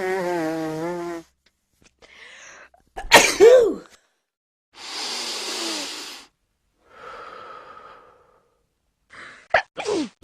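A person sneezing repeatedly, with breaths between: a wavering voiced build-up at the start, a loud sneeze about three seconds in, long breathy exhales, and two quick sharp sneezes near the end.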